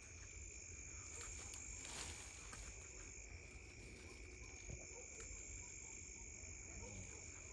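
Crickets chirping continuously at night: a steady high trill with a second, higher one above it. A few faint rustles and clicks come through, with a brief louder rustle about two seconds in.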